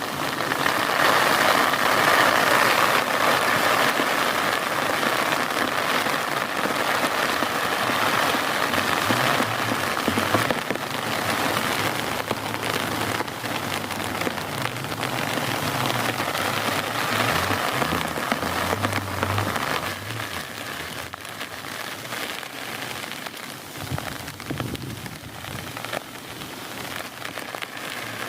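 Heavy rain pouring down, a dense spatter of drops hitting surfaces; it eases somewhat after about twenty seconds.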